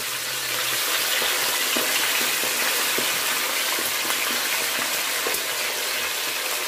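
Whole lionfish deep-frying in hot oil over high heat: a steady, crackling sizzle that grows slightly louder in the first second as the second fish settles into the oil.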